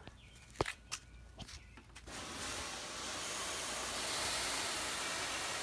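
A few faint clicks, then a steady hiss sets in about two seconds in and holds even.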